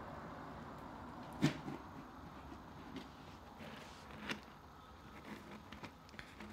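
A few soft knocks and rustles from handling around a wire pet cage. The loudest is a knock with a dull thud about a second and a half in, and a smaller one comes around four seconds in, over a low steady background.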